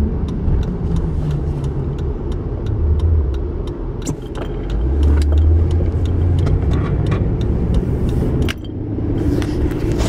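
Car engine and road rumble heard inside the cabin while driving, with a steady run of light ticks about three a second.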